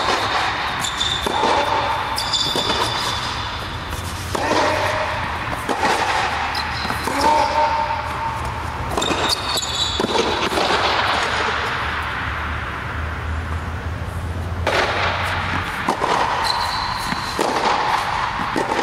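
Tennis rally on an indoor hard court: sharp racket-on-ball hits and ball bounces every second or two, with brief rubber-soled shoe squeaks. A low steady hum runs beneath and stops near the end.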